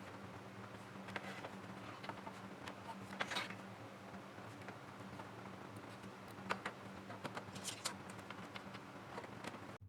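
Faint scattered clicks and light taps of hands handling small parts, over a low steady hum; the sound cuts off abruptly near the end.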